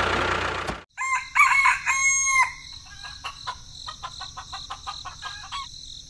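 A rooster crowing once, a cock-a-doodle-doo starting about a second in, right after a steady noise cuts off. It is followed by a run of light clicks, several a second, over a steady high-pitched hum.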